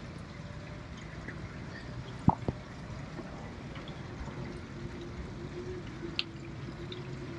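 Water lapping and dripping against a sailboat's hull, under a low steady hum. Two brief knocks come about two seconds in, and a single click near the end.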